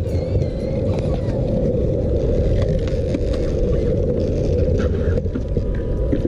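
Skateboard wheels rolling over concrete in a steady low rumble, with a few faint clicks.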